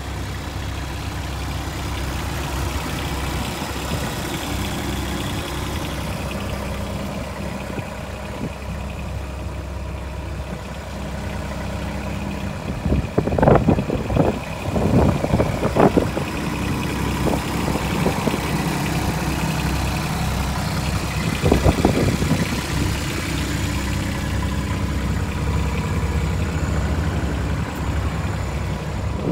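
Bobcat E10 mini excavator's small three-cylinder diesel engine idling steadily. Short clusters of sharp knocks come about halfway through and once more later.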